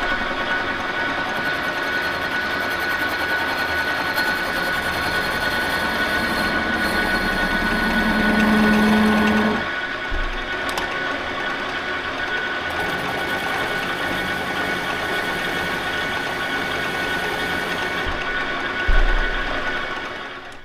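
Victor engine lathe running with its chuck spinning the shaft, a steady mechanical whine over the drive noise. It grows louder for a second or two about eight seconds in, then dies away near the end.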